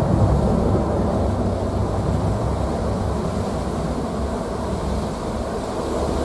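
Boeing 777-300ER's twin GE90-115B turbofans at takeoff thrust as the airliner lifts off and climbs out: a steady low rumble that eases slightly.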